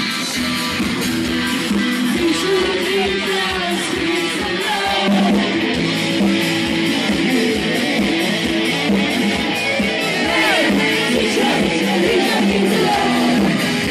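Band music through loudspeakers: guitars strummed over a steady beat.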